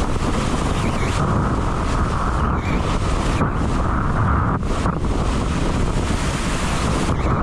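Strong wind buffeting an action camera's microphone as a windsurf board planes at speed over choppy water, with the rush and spray of water along the hull. There is a steady low rumble, and a hissing layer that dips out briefly a few times.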